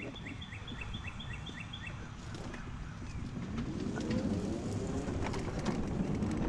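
A bird chirping quickly, about five short calls a second, over the first two seconds. Then the electric drive motor of a mobility scooter whines up in pitch as it pulls away, and hums steadily while it rolls along the street.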